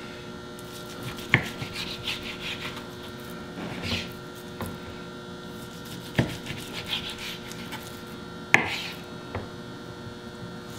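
Chef's knife slicing raw chuck roast into portions on a cutting board: rasping strokes as the blade saws through the meat, with a sharp knock of the blade on the board three times. A steady hum runs underneath.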